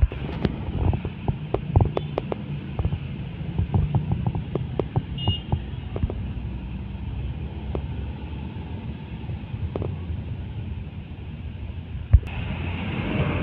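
Slow heavy road traffic: diesel trucks and minibuses idling and creeping past with a steady low engine rumble, body panels clicking and rattling. A brief high beep sounds about five seconds in, and a sharp knock near the end.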